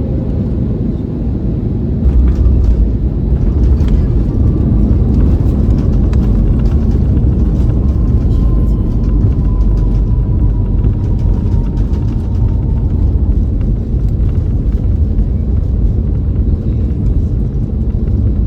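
Cabin noise of an Airbus A320neo during landing: a steady rush of engines and airflow that steps up about two seconds in into a heavy low rumble with scattered rattles, with a faint slowly falling whine in the middle.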